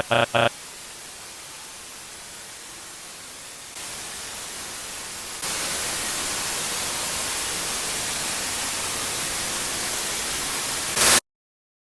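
Static hiss from a mock emergency alert broadcast as the station malfunctions. Two short electronic beeps open it, then the hiss runs on and gets louder in two steps. A brief louder burst comes just before it cuts off suddenly to silence, about a second before the end.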